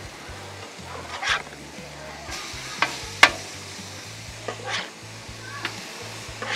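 Pork chops sizzling as they are laid on a 22-inch Blackstone steel griddle heated to about 420°F. A metal spatula clanks and scrapes on the griddle top several times, loudest about three seconds in.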